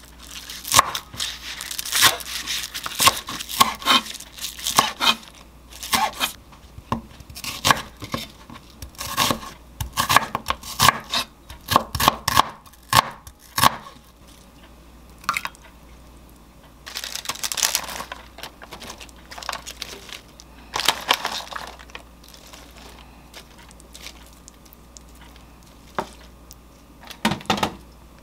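Chef's knife cutting green onions and onion on a wooden cutting board: a rapid run of sharp knocks for about the first half. After that it is sparser, with a couple of rustling bursts and a few light knocks near the end.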